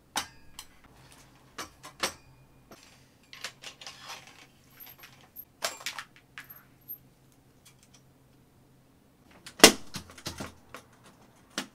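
Scattered clicks, knocks and light metallic clinks from handling telescope-mount gear: a Sky-Watcher EQ6-R Pro equatorial mount on its steel tripod, its hand controller and cables. The sharpest knock comes about ten seconds in.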